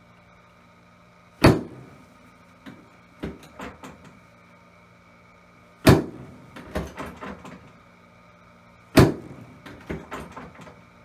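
Chiropractic adjusting table's drop section clacking down three times under the doctor's thrusts, each loud clack followed by a few smaller clacks and rattles. These are pelvic adjustments for a posterior-rotated (PI) ilium.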